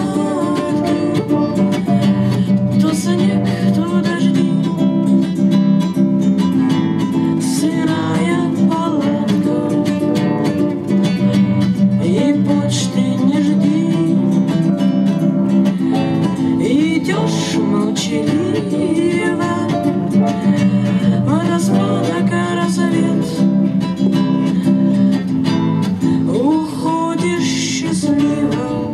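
Acoustic guitar strumming chords, accompanying singing of a Russian bard song.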